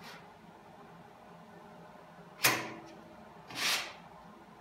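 Filler spreader worked over fresh body filler on a steel car fender: a sharp click about halfway through, then a short scraping swipe near the end.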